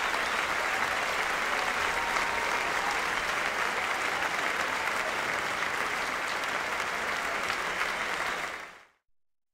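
Large stadium crowd applauding steadily, fading out near the end.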